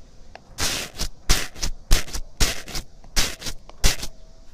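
Foamy, bubble-filled slime squishing as a handheld microphone's grille is pressed and dragged through it at close range. It comes as a quick run of short, sharp bursts, two or three a second, each with a soft low thump.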